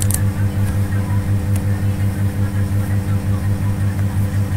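Steady low electrical hum, with a quick regular pulsing in it, and a couple of faint computer-keyboard clicks near the start and about one and a half seconds in.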